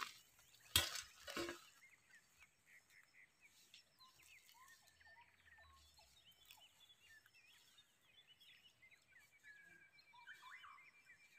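Two sharp knocks about a second in, then faint outdoor ambience of many small bird calls and chirps, with a rapid, even trill near the end.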